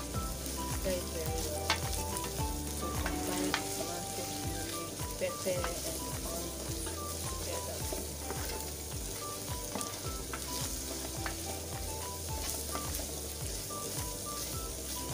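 Tomato puree and onions frying in hot palm oil in a pot, a steady sizzle as the mixture is stirred, with a few sharp knocks along the way.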